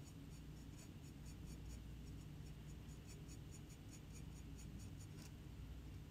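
Small flat brush stroking and dabbing glaze onto the edge of a ceramic palette: faint, quick scratchy strokes, several a second, then a single louder tap about five seconds in.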